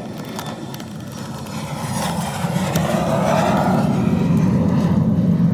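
Low rumble of a motor vehicle, growing louder from about two seconds in and then holding steady. A few faint clicks sound over it.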